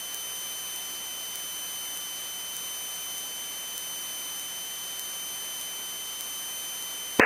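Steady electrical hiss with a constant high-pitched whine on a light aircraft's headset intercom audio feed, in a gap between voices. The engine itself is not heard.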